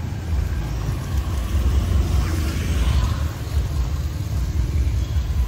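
Street traffic with a steady low rumble; a vehicle passes, swelling about two to three seconds in.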